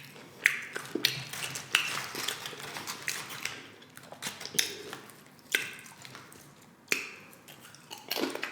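Close-up crunching and chewing of tortilla chips loaded with cheese and shrimp, in sharp irregular crunches about a second apart.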